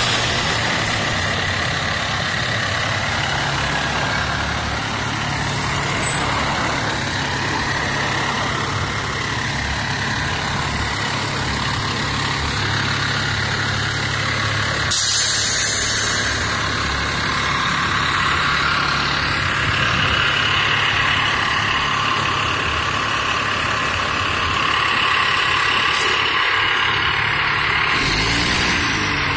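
Fire engine's diesel engine running steadily as the truck rolls slowly past, with a short, loud hiss about halfway through.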